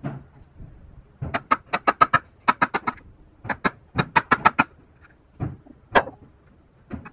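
Metal-headed hammer tapping the wooden handle of a chisel as it chops into a wooden joint: a quick run of sharp taps from about a second in, then a few single strikes near the end.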